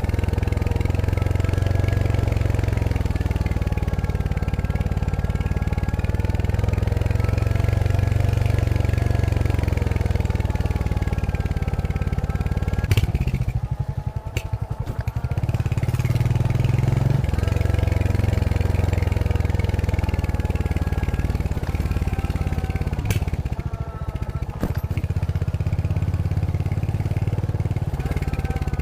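Royal Enfield Hunter 350's single-cylinder engine running through its stock exhaust while riding, its pitch rising and falling with the throttle. Twice the engine note drops away for a moment, about halfway through and again about two-thirds through, each time opening with a sharp click.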